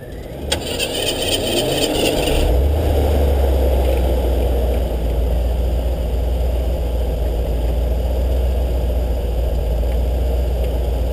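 Off-road 4x4 truck driving, its engine pulling away and then running steadily under a heavy low rumble from about two seconds in.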